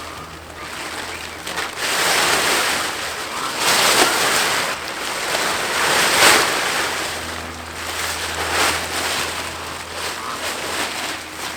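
Large sheet of greenhouse plastic on a hoop house rustling and crackling as it is pulled and handled, in several loud swells that rise and fall.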